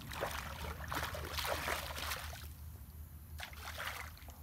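Shallow pond water splashing and sloshing around a person's legs as she wades through it, in uneven bursts that ease off about two and a half seconds in and return briefly near the end.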